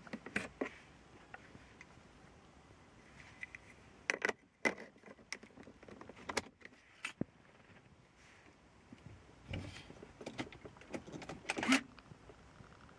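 Small plastic clicks and scrapes as the cap is pulled off a car's 12-volt cigarette lighter socket and a plug-in battery voltmeter is pushed into it. The clicks are scattered and sharp, with the loudest near the end.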